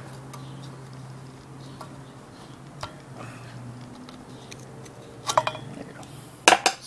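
Flat screwdriver prying a grease seal out of a motorcycle's rear wheel hub: scattered metal-on-metal clicks and scrapes against the hub, with a burst of sharper clicks about five seconds in and a louder burst near the end as the seal comes free.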